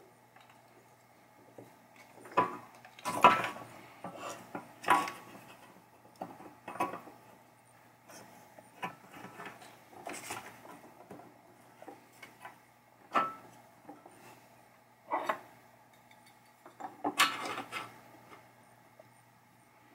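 Pinball chime box parts being handled and fitted together: irregular metallic clinks and knocks of the sheet-metal bracket and coils on a wooden table, a few sharper and louder than the rest, with quiet rubbing between.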